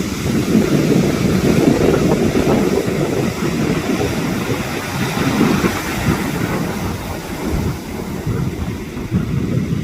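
Sea waves surging and breaking, heard as a loud, continuous low rush, with wind buffeting the microphone.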